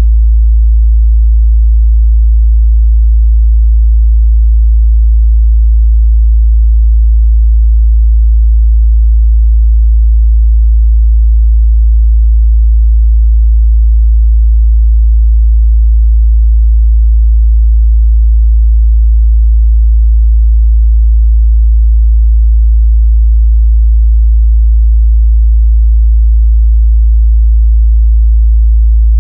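A steady, loud 55 Hz sine-wave test tone: a single deep, unchanging bass hum.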